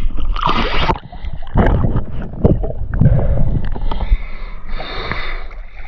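Water sloshing and splashing against a camera at the sea surface, with gurgling, uneven surges and short knocks as the housing bobs in and out of the water.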